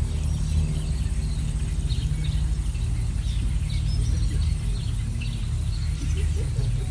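Songbirds chirping in short, scattered calls over a steady low rumble.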